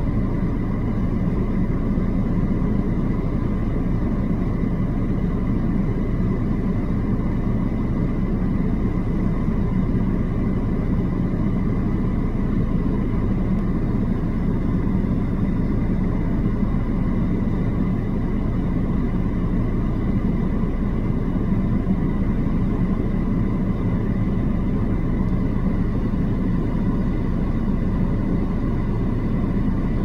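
Steady low rumble of a car engine idling, heard from inside the car, with a faint steady high tone over it.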